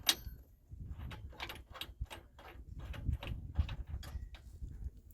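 Ratchet wrench clicking in a quick, slightly uneven series, about three to four clicks a second, as it runs the hitch's mounting bolts in.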